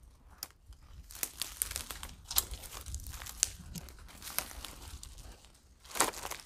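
Footsteps crunching and crackling through dry fallen leaves and twigs on a woodland floor, in irregular steps, with a louder crunch near the end.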